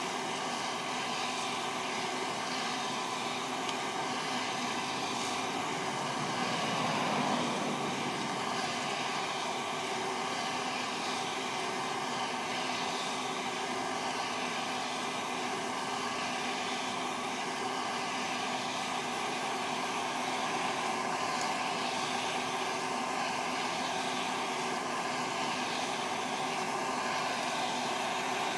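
West Bend Poppery hot-air popcorn popper running as a coffee roaster: its fan and heater blowing a steady whoosh with motor hum, briefly louder about seven seconds in.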